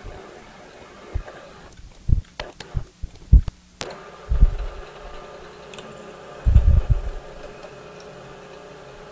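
Milling machine running with a steady hum, broken by several dull knocks and a couple of sharp clicks from hands working the quill and drill chuck; the heaviest knocks come about three seconds in and again around six and a half seconds.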